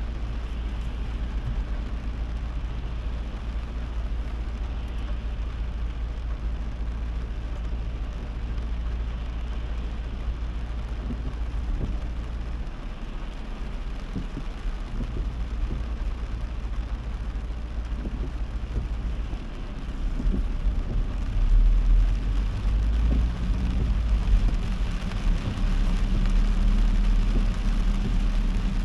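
A car driving in heavy rain: a steady hiss of rain over a low engine and road rumble, which grows louder about twenty seconds in.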